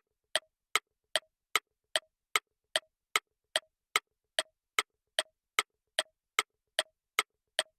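Quiz countdown timer sound effect: sharp, evenly spaced ticks, about two and a half a second, each with a short pitched blip.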